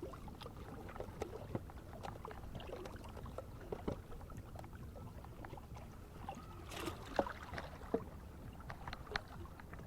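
Faint water lapping and sloshing, with scattered small clicks and knocks and one louder brief knock about seven seconds in.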